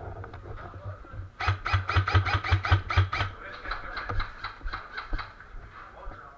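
Airsoft electric rifle firing a fast burst of about seven shots a second, each shot a sharp crack over the hum of its motor, followed by a fainter run of further shots.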